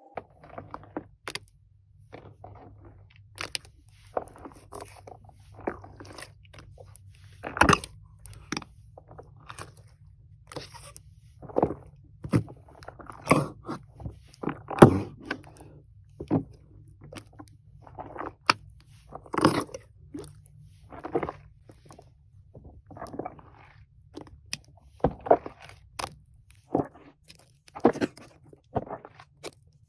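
Foam slime being squeezed and pressed by hand, giving irregular crunchy crackling pops, some much louder than others, over a faint low hum.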